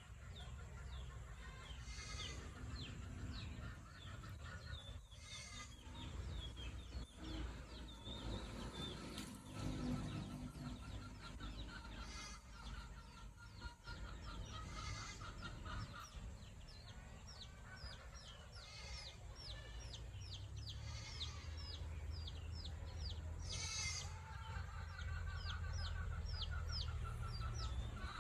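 Chickens clucking and calling, with long runs of short, high, repeated peeps and a few louder calls; a low steady rumble underneath.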